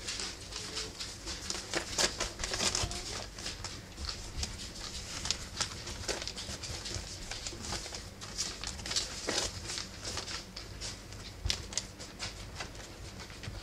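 Rough collie puppies scrambling and play-fighting on fleece bedding: an irregular run of light scratches and pats from their paws and claws.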